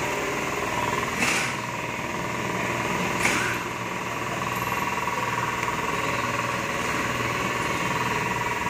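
Steady mechanical hum of workshop machinery with a constant whine running through it, broken by two short hissing bursts about one and three seconds in.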